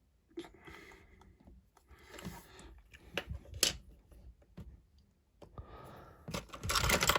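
Small plastic Lego pieces being handled and set down: scattered clicks and rustling, loudest near the end.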